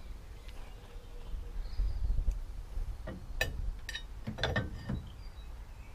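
Steel bolts and spacers clicking and clinking as they are handled and offered up behind a steel rear cross member, with a few sharp clicks between about three and five seconds in.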